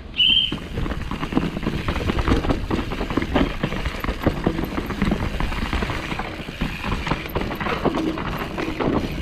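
A single short high beep just after the start, then continuous dense rattling, clicking and knocking with low rumble, as of a mountain bike moving over rough, rocky ground.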